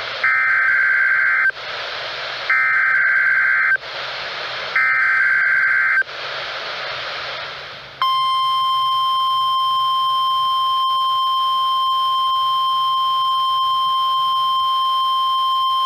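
NOAA Weather Radio Emergency Alert System signals. First come three buzzy SAME digital header bursts, each about a second long, with radio hiss between them. About eight seconds in, the steady 1050 Hz warning alarm tone starts and holds at one pitch.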